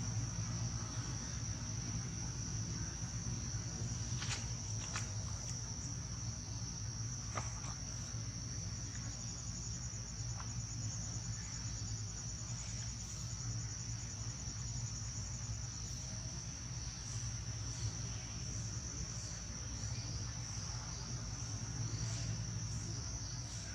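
Steady high-pitched drone of insects in the forest, with a second, finely pulsing insect call joining above it for several seconds from about a third of the way in. A low steady hum runs underneath, and there are a few faint clicks early on.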